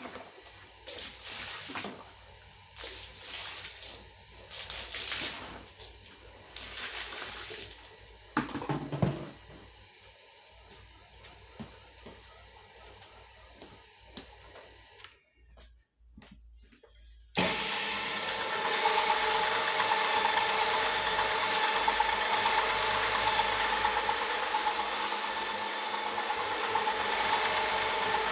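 Irregular bursts of water splashing and sloshing for about fifteen seconds. After a short lull, the electric motor of a carpet-scrubbing floor polisher switches on suddenly and runs steadily with a hum.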